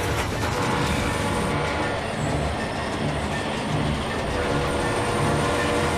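Train running fast on rails, with a regular low beat about twice a second.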